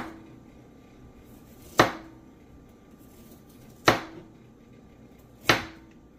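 Knife slicing through a carrot and striking the cutting board: four sharp chops about two seconds apart, each with a short ring.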